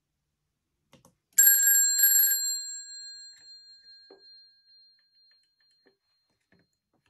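The ringer bells of a 500 series telephone, its case open, ring in two quick rattling bursts lasting about a second, and the gong tones then ring on and fade over a couple of seconds. A few faint clicks come from the mechanism being handled. The bell is not ringing as well as it should and is being adjusted.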